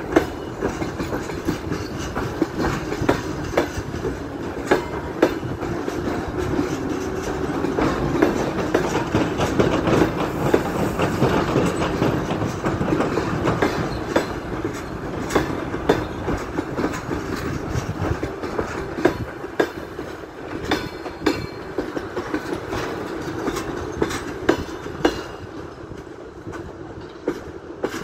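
Passenger coaches of a long-distance express train rolling past at a platform: a steady rolling rumble of steel wheels on rail, with repeated clicks as the wheels cross rail joints. It swells toward the middle and eases off near the end.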